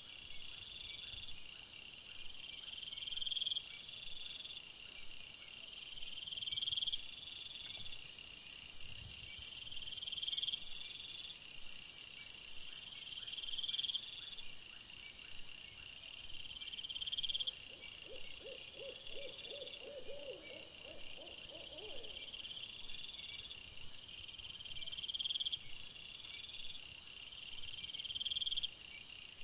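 Night-time chorus of calling insects or frogs: short high chirps repeat about every two seconds over a steady background of trills. About two-thirds of the way through, a lower, quavering call of rapid pulses lasts a few seconds.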